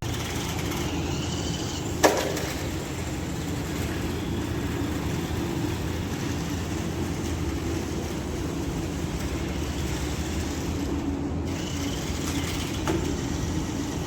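Toy 4×4 RC rock crawler car running, its electric motor and gears whirring steadily, with one sharp knock about two seconds in and a lighter one near the end.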